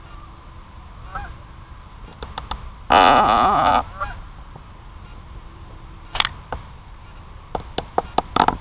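Geese honking: one loud, drawn-out honk about three seconds in, then a single short call and a quick run of short honks near the end.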